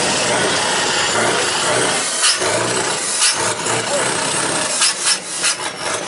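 Scania V8 truck engine running loud through its exhaust: a steady loud noise for about two seconds, then uneven, with sharp peaks and dips.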